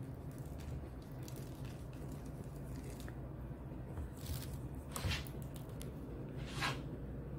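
Low steady hum with faint scattered clicks and three short soft rustles in the second half: light handling noises as a jar and the phone are moved about.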